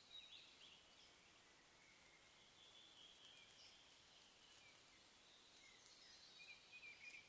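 Faint birdsong from small songbirds in a spruce forest, over steady microphone hiss: a few chirps about the start, quieter song in the middle, and a run of chirping trills near the end.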